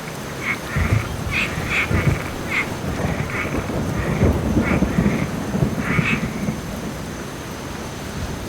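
Steady rain with a low roll of thunder that swells about a second in, peaks midway and fades near the end. Short animal calls, croaking or quacking, repeat over it every half second or so.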